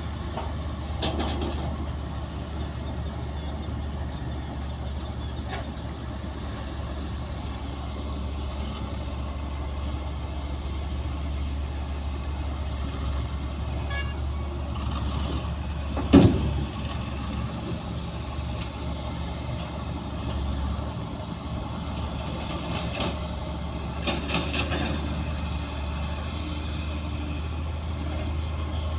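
Heavy diesel earthmoving machinery running with a steady low drone, with a few knocks and one loud bang about halfway through.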